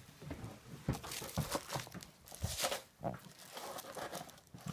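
Clear plastic mailing bag crinkling and tearing as a parcel is unwrapped by hand, with a few soft knocks from the cardboard box being handled.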